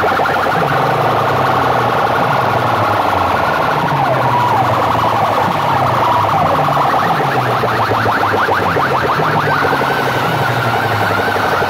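Very loud siren-like electronic effects blasted through a large array of horn loudspeakers: rapid, repeated falling chirps over a repeating stepped bass line. Slower falling sweeps come in about four seconds in, and a wavering siren tone comes in near the end.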